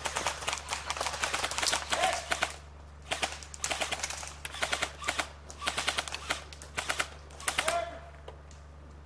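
Airsoft guns firing in rapid full-auto bursts: a fast rattle of shots in four or five bursts with short pauses between them.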